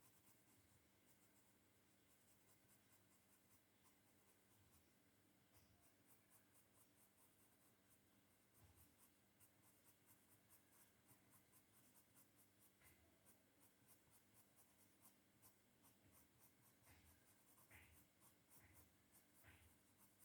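Very faint scratching of colouring strokes on paper, quick and repeated back and forth, a little louder from about halfway through.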